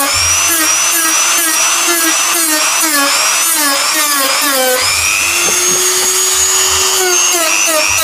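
Dremel rotary tool with a sanding bit grinding a plastic car bumper: its high whine dips in pitch with each short stroke as the bit is pressed into the plastic, then holds a steady pitch for a couple of seconds past the middle before the strokes resume.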